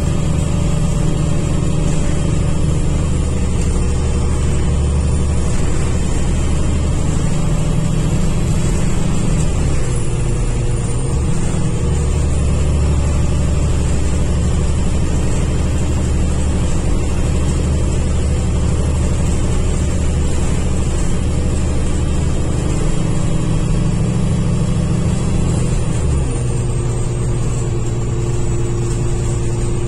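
Cummins ISL8.9 diesel engine of an ADL Enviro500 MMC double-decker bus pulling hard up a slope, heard inside the upper-deck cabin as a steady drone with road noise. Its note shifts a few times along the way.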